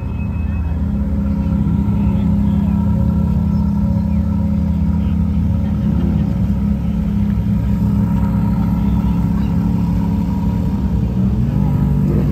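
Car engine running with a deep, steady rumble, growing louder over the first couple of seconds, with a shift in engine pitch near the end.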